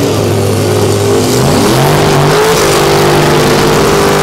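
Drag race car's engine held at high revs during a burnout, its pitch stepping up about a second and a half in and then holding steady, over the hiss of spinning tyres.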